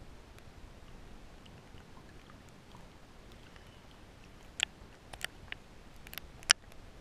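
Underwater ambience: a faint steady hiss with scattered small ticks, then about six sharp clicks in the last two and a half seconds, the loudest near the end.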